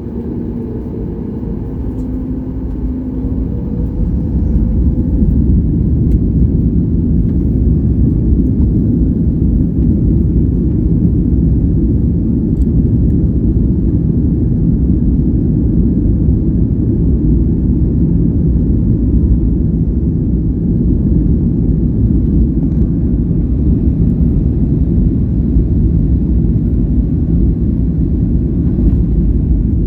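Boeing 737 MAX 8's CFM LEAP-1B jet engines at takeoff thrust, heard from inside the cabin. A deep rumble builds over the first few seconds, then runs loud and steady through the takeoff.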